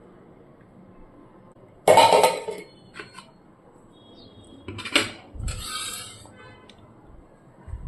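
Kitchenware being handled: a loud clatter of dishes and utensils about two seconds in, a sharp knock midway followed by about a second of scraping, and a small knock near the end.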